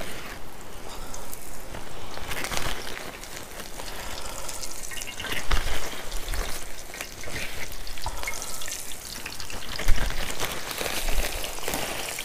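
Battered morel mushrooms frying in hot oil in a cast iron skillet, a steady crackling sizzle. A few low thumps stand out, the sharpest about ten seconds in.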